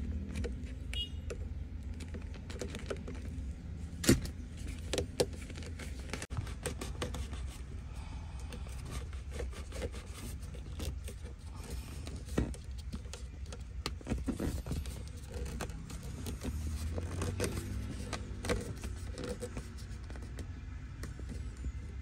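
Scattered small plastic clicks, taps and scrapes as the fabric edge of a handbrake boot is prodded with a screwdriver and then pressed by hand into the plastic console trim, over a low steady rumble. A sharp click about four seconds in is the loudest.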